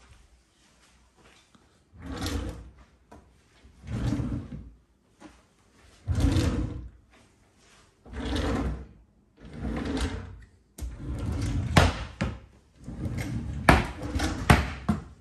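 Kitchen cabinet drawers being slid open and pushed shut one after another, about seven times, each a short rumbling slide ending in a knock.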